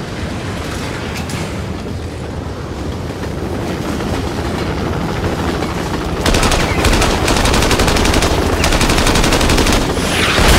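Action-film sound mix: a steady rumble of a moving train, then about six seconds in a mounted machine gun opens fire in long, rapid bursts.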